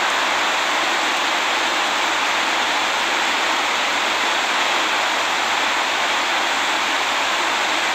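Steady, even hiss with no pitch, starting suddenly and holding one level.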